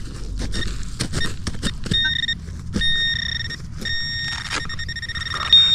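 Metal detector's high-pitched signal tone over a target, sounding in several stretches from about two seconds in, loudest near the end. Wood chips scuff and rustle underfoot.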